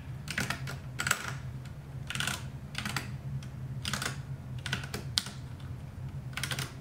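Keys of a Ducky One 2 Mini mechanical keyboard being pressed one by one, a dozen or so separate clicks at an uneven pace of about one or two a second, over a steady low hum.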